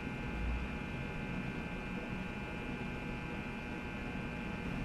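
Steady electrical hum with faint hiss: room tone, with a faint low bump about half a second in.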